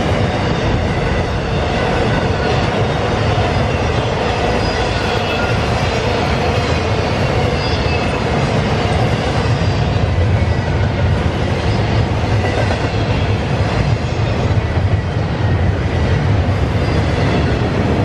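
Double-stack intermodal freight cars rolling steadily past on the rails, a continuous noise of wheels on track.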